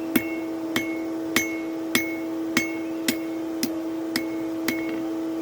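Blacksmith's hammer striking steel on an anvil in an even rhythm, nine blows about one every 0.6 s, each with a short metallic ring; the last few blows are lighter. A steady hum runs underneath.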